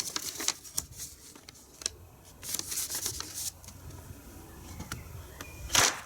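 A folded A4 paper popper is rustled and handled, then snapped through the air, giving one sharp crack about six seconds in.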